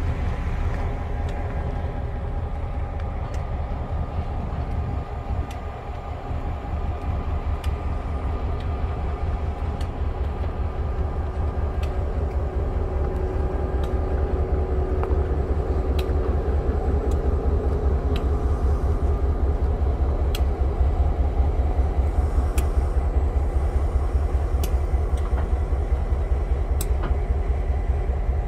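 TasRail diesel locomotives 2051 and 2054 hauling a coal train past: a steady, pulsing low diesel engine rumble that grows somewhat louder in the second half as the second locomotive comes by. Occasional sharp clicks sound over it.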